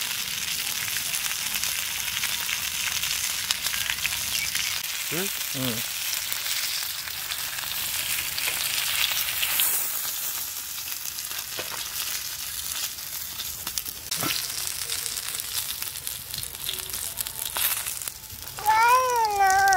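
Quail pieces frying in hot oil in a pan: a steady sizzle with fine crackling that eases after about ten seconds. Near the end a person's voice calls out loudly with a wavering pitch.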